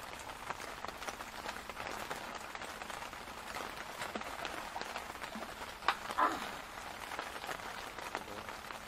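Light rain falling on the platform's wet deck, an even patter full of small drop ticks. A sharp knock comes about six seconds in, followed at once by a brief short sound.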